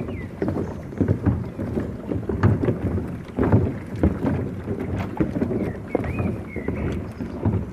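Falling water of a mountain waterfall, rushing and splashing with an uneven, thumping low rumble, mixed with wind buffeting the microphone.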